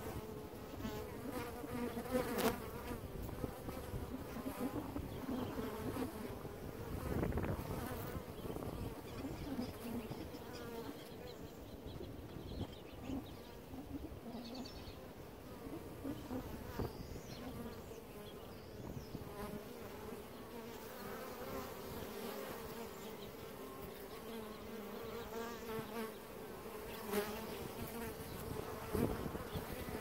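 Honey bees buzzing at a hive entrance: a steady hum of many bees, with individual bees swelling and fading as they fly close past. A few brief taps stand out in the hum.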